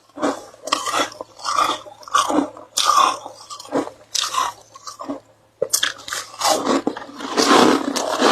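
Ice being bitten and chewed: a string of separate sharp crunches about two a second, then a quick click and denser, louder crunching in the last few seconds.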